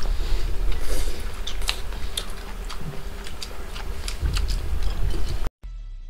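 Scattered light clicks and taps over a low hum, cut off suddenly about five and a half seconds in, followed by a brief falling tone near the end.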